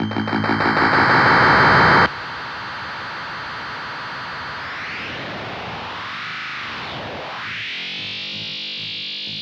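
Circuit-bent Waldman flanger pedal making harsh electronic noise: a pulsing drone swells louder and cuts off sharply about two seconds in. A quieter flanger sweep follows, gliding up, dipping down and back up, then holding steady.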